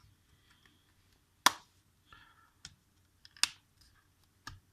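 Plastic back-cover clips of a Xiaomi Redmi Note 5 phone snapping loose as the cover is pried open along its seam: a few sharp clicks, the loudest about one and a half seconds in, with faint crackling between them.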